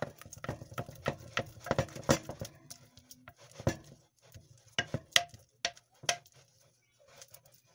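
Wooden spoon knocking and scraping against a glass mixing jug as butter is creamed by hand. A quick run of light knocks for the first couple of seconds, then slower, spaced-out knocks.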